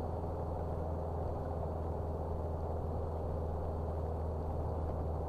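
Steady in-cab engine drone and road noise of a vehicle cruising at about 43 mph, a constant low hum with no changes.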